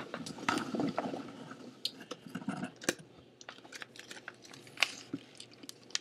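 Crumpled packaging being unwrapped and handled close by, rustling and crinkling, with irregular sharp crackles; the loudest come about three and five seconds in.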